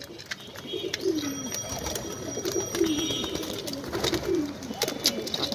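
A flock of domestic pigeons cooing, many birds' low rolling coos overlapping one another, with scattered short clicks among them.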